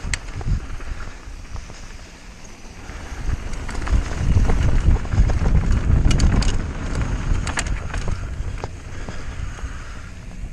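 Mountain bike descending a dirt trail: wind buffeting the microphone over the hiss of tyres, with sharp rattles and clicks from the bike over rough ground. The wind rumble builds about four seconds in and eases near the end.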